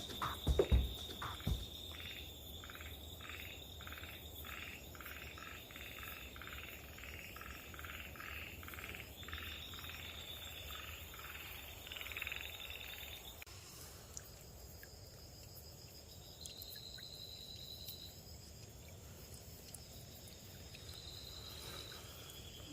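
Frog calls at night: a long run of repeated croaks, about two a second and quickening, which stops a little past halfway. A faint high, steady insect trill runs alongside and comes and goes.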